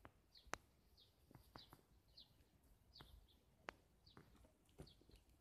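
A bird chirping faintly and repeatedly, short slightly falling high notes about every half second to second, with a few sharp clicks standing out above them.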